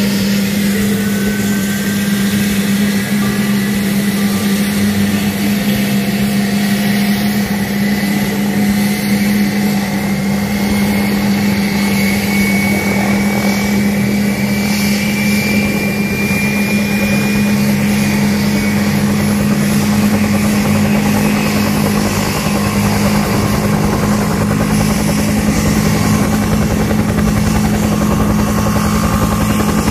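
Military helicopters, a UH-60 Black Hawk and a UH-1 Huey, running on the ground before take-off, with a steady low hum and the high whine of a turbine engine. The whine rises slowly through the first half, as an engine spools up.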